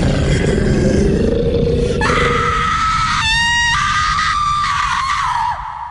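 Harsh, distorted noise with a scream-like cry and a sustained high whine: a noise interlude on a goregrind album, dropping away near the end.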